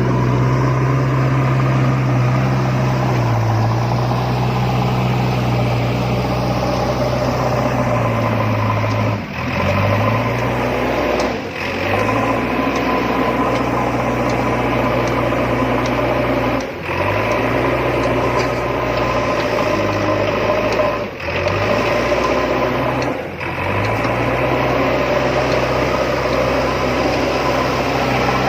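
Diesel engine of a JCB excavator running steadily with a low hum. Its pitch shifts slightly now and then, and it breaks off for a moment about five times.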